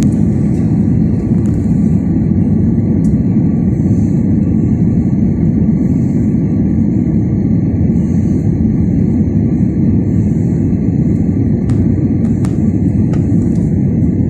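Jet airliner cabin noise on the ground after landing: the engines' steady low rumble heard from inside the cabin, with a few faint clicks near the end.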